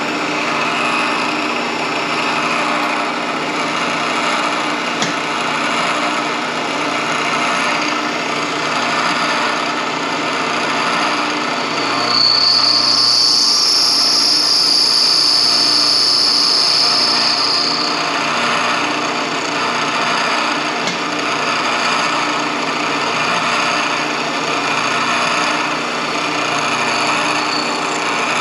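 Milling machine running, its end mill cutting into a transmission gear's worn engagement dog to back-cut it at 3 degrees. A steady grinding noise sits over the motor hum. A high, steady squeal joins about twelve seconds in and lasts about six seconds.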